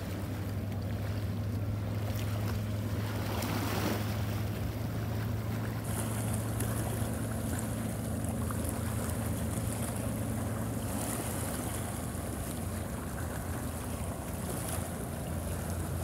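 Sea waves washing with wind noise on the microphone, over a steady low hum that weakens near the end; a brighter hiss of surf comes in about six seconds in.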